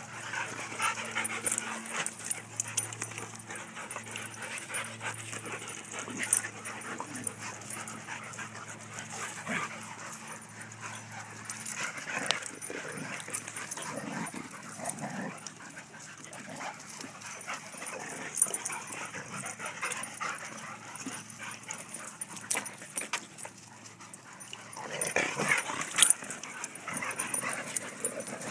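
Several dogs whimpering and yipping with some barks, in irregular short bursts that grow louder about 25 seconds in.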